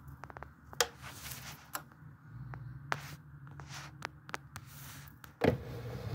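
Scattered soft clicks, taps and scrapes of handling noise as a phone is held and moved close to the floor, with a louder knock about five and a half seconds in, over a faint low room hum.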